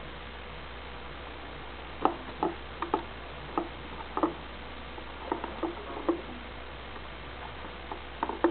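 Kitten moving and pawing inside a woven wood-chip basket, making the thin wooden strips give irregular short clicks and creaks. These start about two seconds in, pause, and come again near the end.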